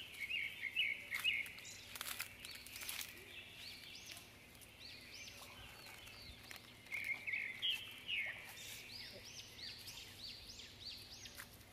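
Small birds chirping, many short high notes that rise and fall, repeating in quick runs, with a few faint sharp snaps like twigs breaking in the brush.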